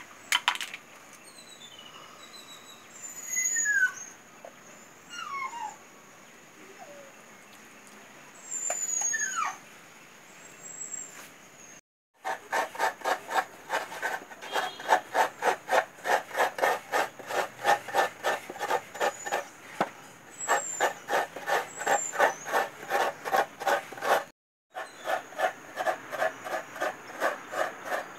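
A half coconut being scraped hard against a hand coconut grater over a clay pot: a fast, even rasping of about three strokes a second, each stroke with a squeaky ring. In the first part, before the grating starts, a few falling bird calls sound over a steady high insect hum.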